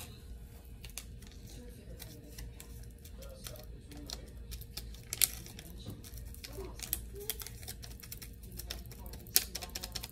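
A small plastic bag crinkling and crackling as it is handled and tipped over the mouth of a jar, making scattered sharp clicks, two of them louder about five and nine seconds in. A steady low hum runs underneath.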